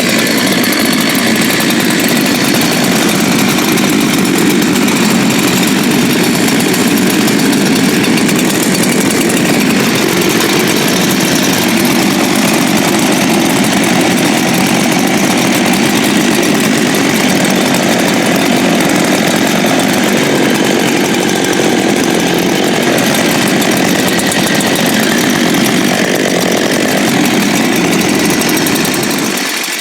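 Two-stroke gas chainsaw, a high-compression saw that is hard to pull over, running steadily after a pull-start test, then dying away right at the end.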